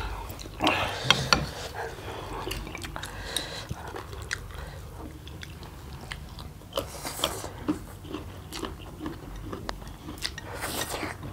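Close-up eating sounds: spicy instant noodles being slurped and chewed, with wet mouth clicks and a few louder slurps spread through.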